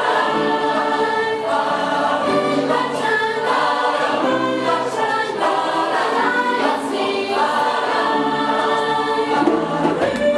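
A large mixed choir of women and men singing together in several parts.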